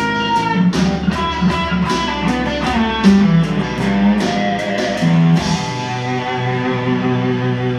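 Tagima Strat-style electric guitar played: a quick run of picked notes and chords, then notes held and left ringing near the end.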